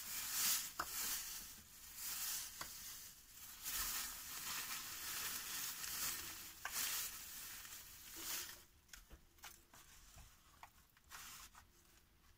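Coarse salt pouring from a plastic bag onto meat in a plastic tray: a steady hiss of running grains with the bag crinkling. About eight seconds in, the pouring stops and gives way to softer scattered rustles and taps as the salt is pressed around the meat by hand.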